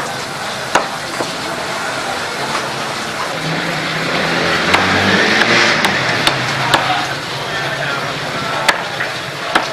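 Heavy butcher's cleaver chopping raw chicken on a wooden block: about seven sharp, irregular chops over steady street noise. A louder rushing sound with a low hum swells up in the middle.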